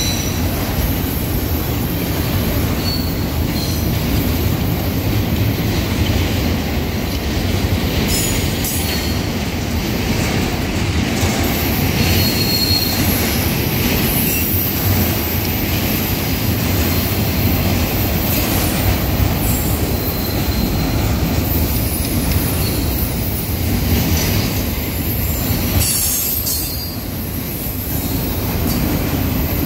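BNSF double-stack intermodal container train rolling past: a steady rumble of wheels on rail, with short high wheel squeals now and then and a few sharp clanks.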